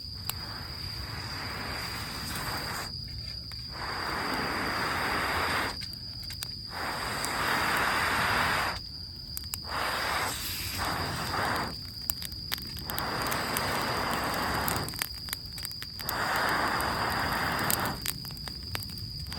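Air blown in long steady breaths into a smouldering campfire of wet wood and leaves, about eight hissing blows of one to three seconds each with short pauses between, to coax it to burn. A steady high insect trill runs underneath.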